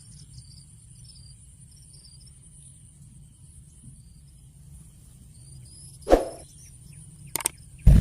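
Outdoor ambience of insects, likely crickets, giving a steady high trill, with a few faint short chirps and a low rumble. A loud thump comes about six seconds in, and a sharp click near the end.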